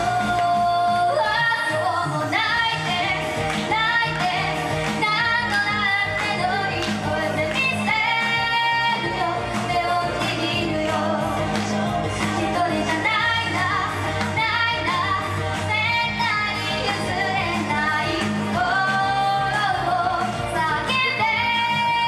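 A young girl singing a Japanese pop song into a handheld microphone over a karaoke backing track, holding long notes between phrases.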